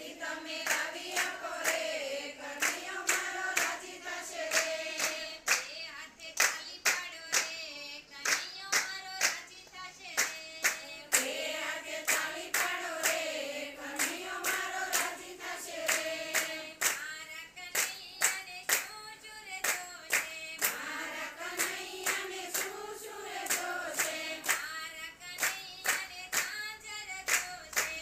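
A group of women singing a Gujarati devotional kirtan together in unison, keeping time with a steady rhythm of hand claps.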